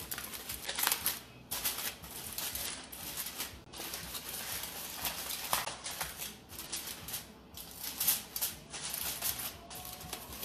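Aluminium foil crinkling and crackling as it is pressed, tucked and crimped over a baking dish, in uneven spurts with a few short pauses.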